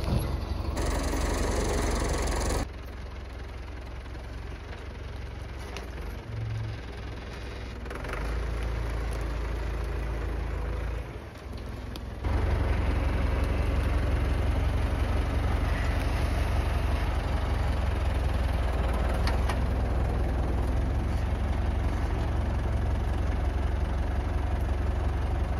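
Tractor engine running steadily as its front loader works a felled log, with a brief rushing noise over it in the first couple of seconds. The engine drops in level about three seconds in and comes back louder about twelve seconds in.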